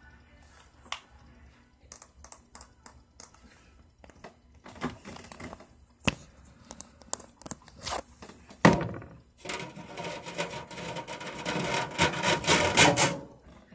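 Fingernails tapping on a plastic Gold Bond lotion pump bottle, as scattered light taps. A sharp knock comes about nine seconds in, followed by a few seconds of loud, dense scratching and rustling right against the microphone.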